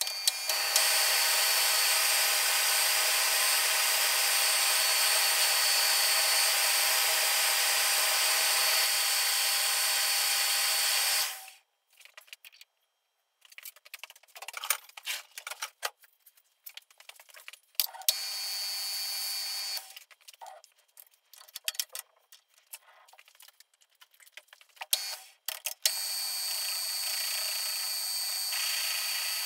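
Metal lathe running steadily, with a high whine over its noise, then stopping abruptly about a third of the way in. Scattered clicks and knocks of metal being handled at the machine follow, with a brief spell of running, and the lathe starts up and runs steadily again near the end.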